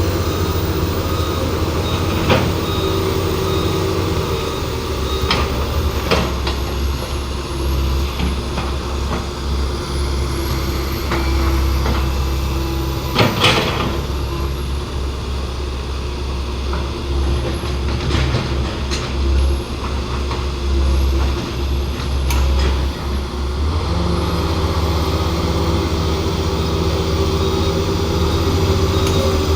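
Heavy diesel engines of large vehicles running steadily, their note shifting partway through, with scattered clanks and a short hiss about 13 seconds in.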